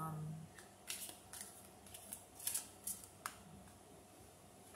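A tarot deck handled in the hands: about half a dozen short, crisp card swishes as cards are shuffled and slid, spread over the first three seconds or so. A brief low hum from the reader at the very start.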